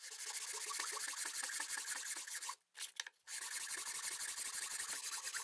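Sandpaper on a long wooden sanding stick rubbed quickly back and forth inside the groove of a plywood block: rapid scratchy sanding strokes, with a short break a little past halfway before they resume.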